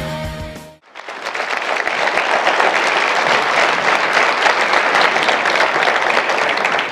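Rock intro music cuts off under a second in, then an audience applauds steadily.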